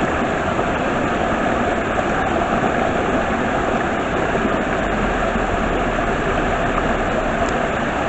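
Waterfall and stream rushing steadily, an even, continuous rush of water.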